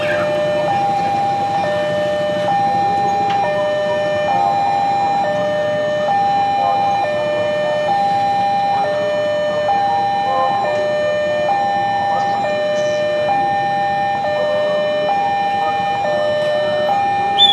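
Railway level-crossing warning alarm sounding: an electronic two-tone signal alternating between a higher and a lower note, each held just under a second, warning that a train is approaching. A train horn starts right at the end.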